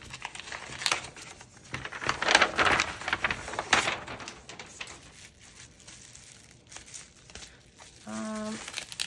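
Packaging being handled, crinkling and rustling in irregular bursts that are loudest about two to four seconds in.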